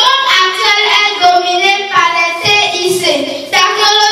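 A young girl singing into a handheld microphone, in held phrases with short breaks between them.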